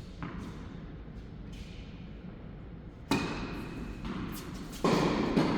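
Tennis ball struck by rackets during a rally on an indoor court: a few faint knocks early on, then two loud sharp hits about three and five seconds in, each leaving a ringing echo in the hall.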